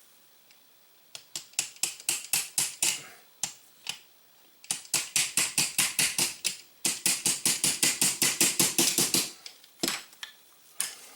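Rapid light taps struck against the wooden forend stock of a Rossi Circuit Judge to knock the stuck forend loose. They come in three runs, the last one fastest at about eight taps a second.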